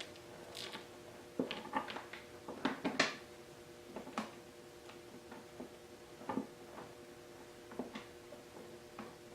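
Irregular light clicks and taps of small hardware being handled while windshield screws are started by hand, over a faint steady hum.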